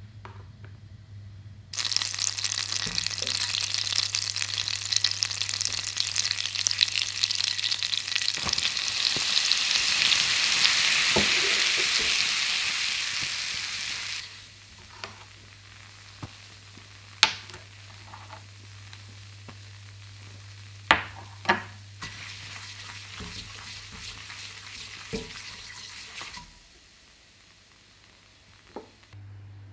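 Butter sizzling and foaming in a nonstick saucepan, then a butter-and-flour roux sizzling as it is stirred with a silicone spatula. The sizzle starts suddenly about two seconds in and is loud until around fourteen seconds, then drops to a softer sizzle with a few sharp clicks, and fades out near the end.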